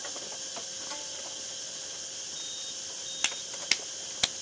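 Steady background hiss with a faint steady tone, then three sharp knocks in quick succession near the end, each louder than the last.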